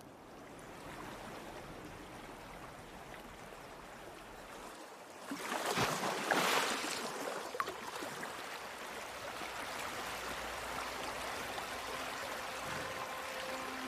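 Water of a shallow stream running over rocks, a steady rushing and trickling, with a louder surge of splashing water about halfway through.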